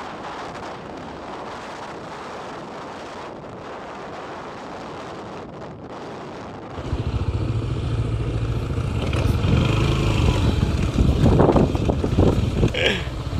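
Wind rushing over the microphone of a moving motorcycle. About seven seconds in it gives way to a louder, heavy low rumble of the motorcycle's engine and wheels, with the engine pitch wavering as it rides a rough dirt track.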